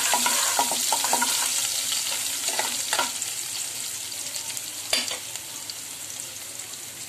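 Chopped onions and cumin seeds sizzling in hot oil in a metal kadhai, a spoon clicking and scraping against the pan during the first second or so and again around three seconds in, with a single sharp knock about five seconds in. The sizzle slowly quietens as the onions start to soften.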